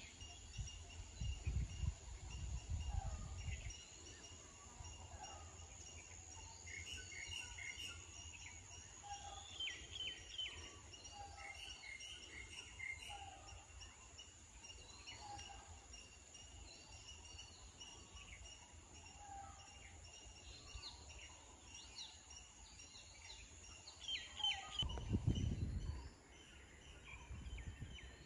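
Outdoor ambience of scattered short bird chirps and calls over a steady high-pitched drone, with wind rumbling on the microphone in the first few seconds and again near the end.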